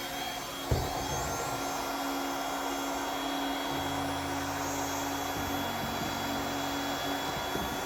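A sharp click just under a second in, then a handheld hot-air blower running steadily with a constant hum, blowing over wet resin to push it into white foam-like lacing.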